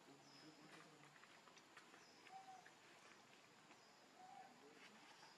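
Near-silent outdoor ambience with a few faint, short chirps and calls, and a faint low voice-like sound in the first second.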